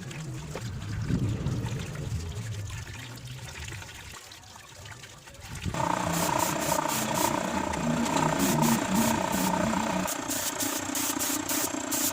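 An indistinct low rumbling noise, then background music with a steady beat comes in about halfway through and carries on.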